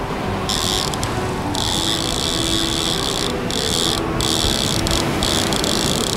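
A fishing reel's drag buzzing as line is pulled off it. It starts about half a second in and runs in spells with brief pauses between them, over steady wind and water noise.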